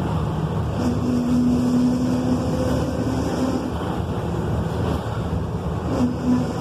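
Volkswagen 17.230 EOD's diesel engine and drivetrain running under way, a dense steady noise with a droning tone that drops out for a couple of seconds past the middle and comes back near the end.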